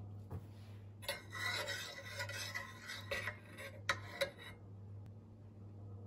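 Rasping, scraping kitchen sound from about a second in to about four and a half seconds, ending with two sharp clicks, over a steady low hum.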